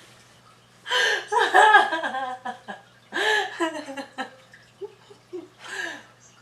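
A woman laughing loudly in three outbursts, with bits of voice mixed in.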